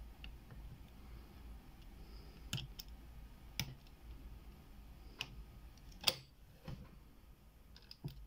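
Faint, scattered clicks of a lock pick working the pins inside an IFAM padlock during single-pin picking, about half a dozen light clicks spread irregularly, the sharpest about six seconds in.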